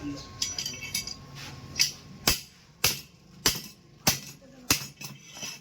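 Metal hammering on a motorcycle's steering-head bearing cup: a few light metallic clinks, then about five sharp strikes roughly half a second apart, as the bearing cup is driven into place.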